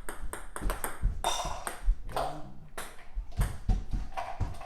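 Ping-pong balls bouncing and tapping on a table and against cups: a run of irregular light taps.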